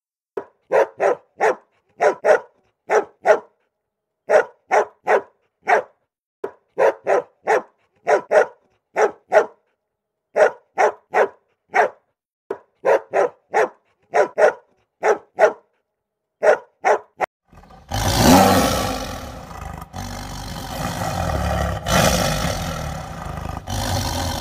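Puppy barking in quick clusters of two to four sharp barks, about every second and a half, with silence between them. A few seconds before the end the barking gives way to a loud, continuous big-cat roar.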